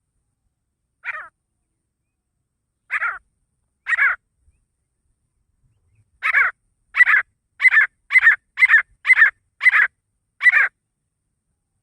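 Male grey francolin (desi teetar) calling loudly in harsh, ringing notes. Three spaced notes come first, then from about halfway a faster run of eight notes, somewhat under two a second.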